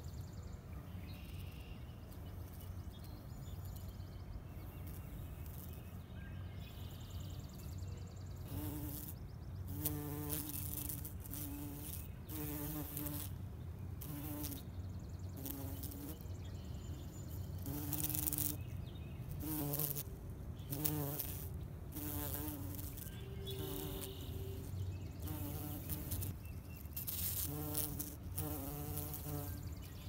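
A bumblebee buzzing in short, repeated bursts as it flies from flower to flower. The hum starts about a third of the way in and comes and goes every second or so. Brief hissy rustles come between the buzzes, over a low steady rumble.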